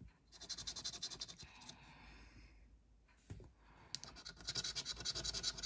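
A coin scratching the coating off a scratchcard in rapid back-and-forth strokes, in two spells: one at the start and one from about four seconds in, with a couple of light knocks between them.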